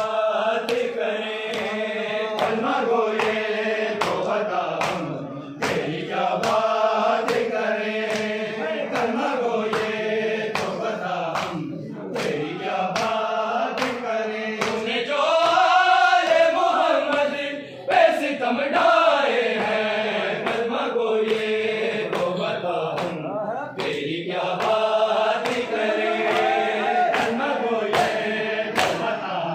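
Male voices chanting a noha together, with a steady rhythm of open-handed slaps on bare chests (matam) keeping the beat.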